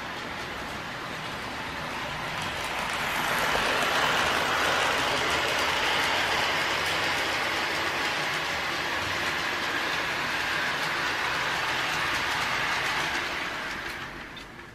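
Lionel Trackmobile model train's electric motor and wheels running on three-rail track at full speed, pulling two freight cars; the model has no sound system, so this is its mechanical running noise. It grows louder over the first few seconds and fades out near the end as it moves away.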